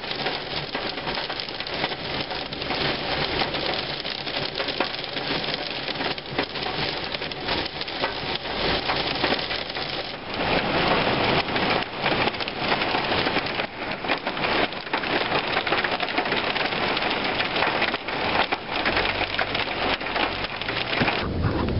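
Heavy thunderstorm rain drumming on a car's roof and windscreen, heard from inside the car as a dense patter that grows louder about ten seconds in.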